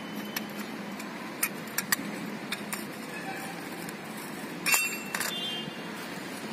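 Metal clutch parts clinking as plates are seated in a Carraro transmission clutch drum: a few light clicks, then a louder clink with a brief ring about five seconds in.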